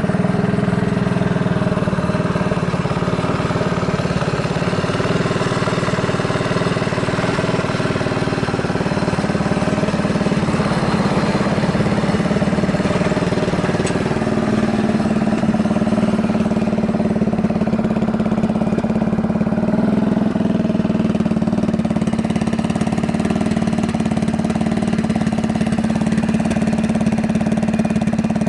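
Yamaha Majesty 250 (SG03J) scooter's single-cylinder four-stroke engine idling steadily, its idle speed rising slightly about halfway through. It runs without abnormal noises.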